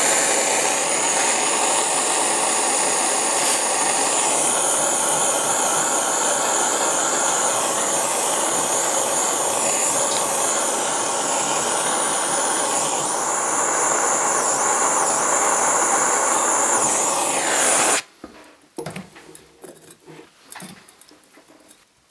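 Gas torch hissing steadily as it heats a silver earring and wire for soldering on a soldering block, shutting off suddenly about eighteen seconds in. A few faint small knocks follow.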